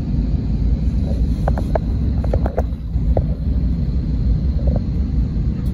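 Cabin noise in an Airbus A320, heard from a window seat over the wing while the jet is on the ground: the engines and airframe give a steady low rumble, with a faint thin high whine above it.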